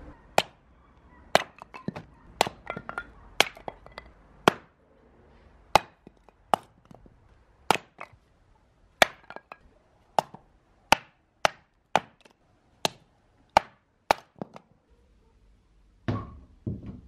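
A hatchet splitting short firewood logs on a chopping block: some twenty sharp chops, about one a second and sometimes quicker, with split pieces clattering after some strokes. The chopping stops a few seconds before the end, and a duller knock follows near the end.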